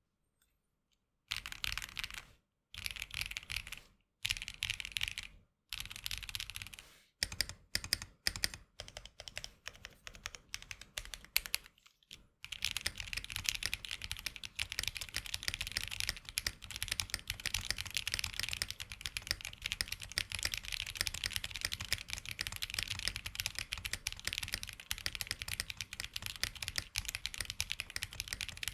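Mechanical keyboard with Akko Snow Blue Grey linear switches being typed on: separate bursts of keystrokes with short pauses at first, then continuous fast typing from about twelve seconds in. The switches are unlubed, and the uploader says they give spring ping.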